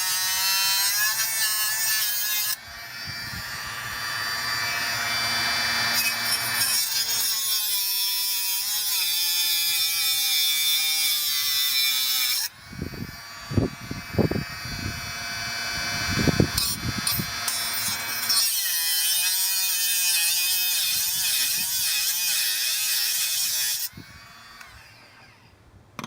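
Parkside PWSA12 B1 12-volt cordless angle grinder running with a high whine that wavers in pitch as the disc is worked into the material. For several seconds past the middle the whine gives way to harsh, irregular grinding bursts. The motor then runs on and stops about 24 seconds in.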